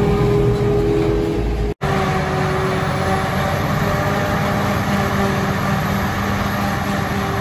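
Claas Jaguar forage harvester and Massey Ferguson tractor working together at grass silage harvesting: a loud, steady machine drone with a held hum. The sound drops out for an instant about two seconds in, then the same steady drone carries on.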